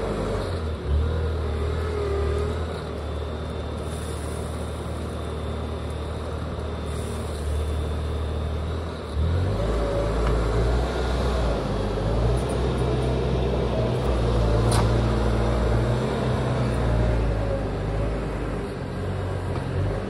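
Bobcat T590 compact track loader's diesel engine running steadily as the machine moves along the trench, growing louder and working harder about halfway through. A single sharp click about three-quarters of the way in.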